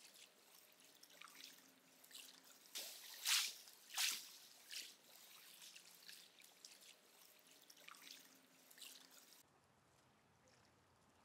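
Water dripping and lightly splashing around a paddleboard on calm lake water, with two louder splashes a few seconds in. It goes nearly silent for the last couple of seconds.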